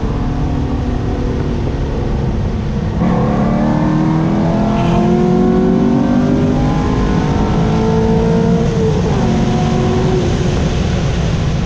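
Corvette C6 Z06's 7.0-litre V8 pulling hard under acceleration, its pitch climbing steadily for several seconds, then dropping sharply about three-quarters of the way through at a shift or lift, over steady road and wind noise.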